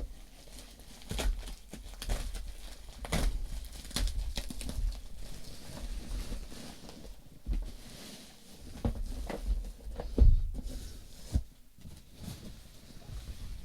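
Parcel packaging being handled and opened by hand: plastic and paper rustling and tearing, with scattered clicks and light knocks.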